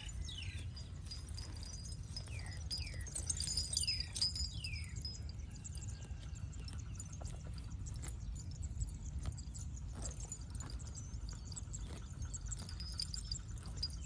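Cow grazing, tearing and chewing grass in short crunching clicks, over a low wind rumble. Birds call in quick falling whistled notes through the first five seconds or so.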